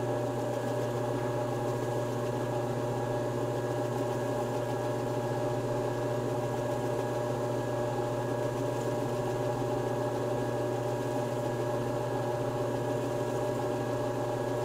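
Electric bowling-ball spinner's motor running with a steady hum while a wet 2000-grit sanding pad is held against the spinning ball.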